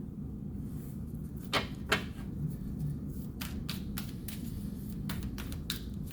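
Tarot cards being handled and laid down, making sharp snapping clicks: two louder snaps about a second and a half in, then a run of quick light taps, over a steady low hum.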